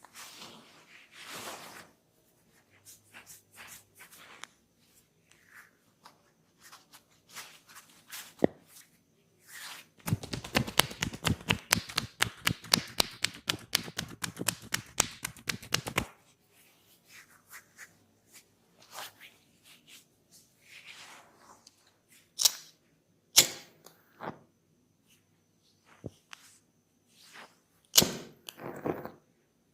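Hands tapping quickly on the head in a massage, a fast, even run of sharp taps lasting about six seconds, with a few single loud slaps or cracks later on and soft rubbing in between.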